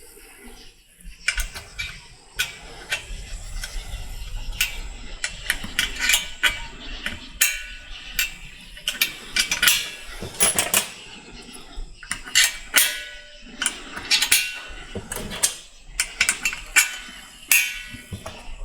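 Small steel transmission oil-pump parts clicking and clinking irregularly as new vanes and rings are fitted into a 6L80 pump rotor and body, some clinks ringing briefly.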